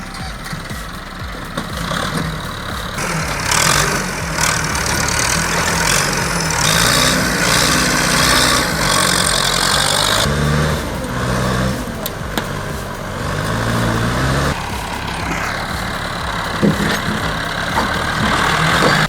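Massey Ferguson 285 tractor's diesel engine working hard, its pitch rising and falling as it revs. From about three to ten seconds in, a loud rushing noise lies over the engine.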